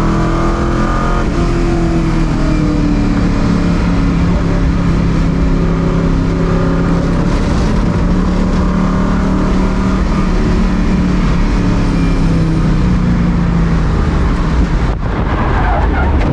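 Race car engine running hard at speed, its pitch rising and falling a little over a steady noise of the car on track.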